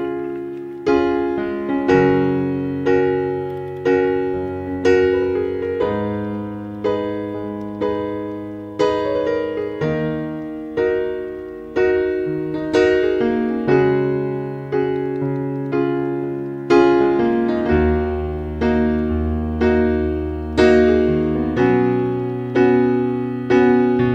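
Background piano music: gentle chords and notes struck about once a second, each fading before the next.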